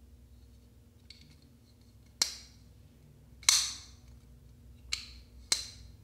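WE Diatomic folding knife's blade snapping open and shut, four sharp metallic clicks with a short ring. The two loudest come about two and three and a half seconds in, and two more come near the end. Fainter ticks of handling come about a second in.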